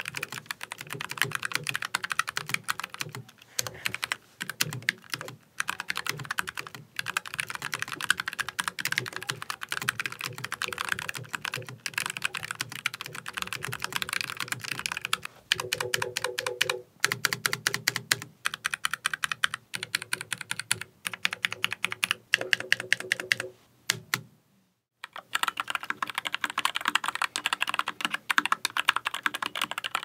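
Typing on a Keychron K5 SE low-profile mechanical keyboard with Gateron low-profile 1.0 Brown tactile switches and PBT keycaps, a fast clatter of keystrokes with short pauses. After a brief silent gap near the end, the typing continues on a NuPhy Air96 low-profile keyboard with Gateron low-profile 2.0 Brown switches and stock PBT keycaps.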